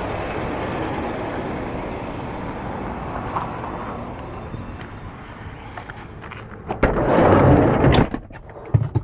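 A vehicle running, its steady noise fading over several seconds, then a loud rushing, sliding sound lasting about a second, followed by a few clicks and knocks near the end.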